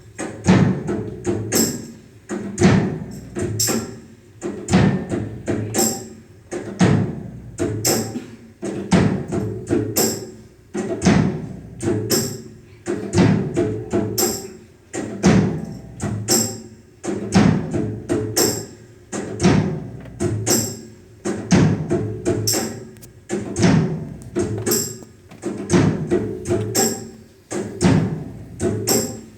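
Background music with a steady percussive beat: sharp clicks over a lower pulse, in a pattern that repeats about every two seconds.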